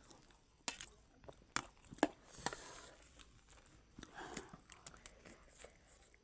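Scattered short crunches, clicks and rustles of people eating chatpat, a crunchy spicy puffed-rice snack. There is a brief soft murmur about four seconds in.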